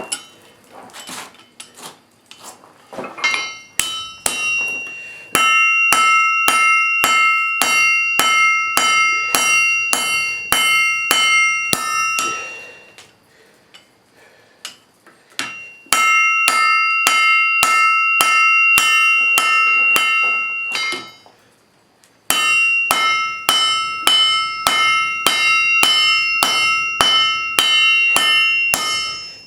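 Blacksmith's hammer striking steel on an anvil, about three blows a second in three long runs, each blow ringing with a bell-like tone that carries between strikes. Lighter, scattered strikes come at the start.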